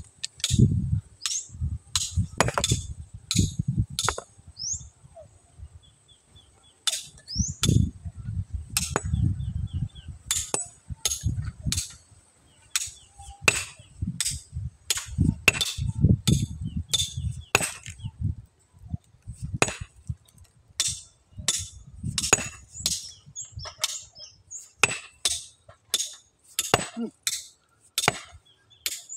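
A steel-headed hammer striking a large stone boulder over and over to split it, giving sharp ringing clinks about once a second, with a couple of short pauses.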